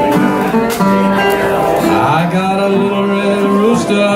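Acoustic blues played on a metal-bodied resonator guitar, with long held notes and a glide up in pitch about two seconds in.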